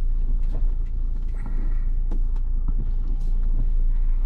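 Ford Bronco crawling off-road: a steady low engine and drivetrain rumble, with scattered short knocks and rattles from the rough trail.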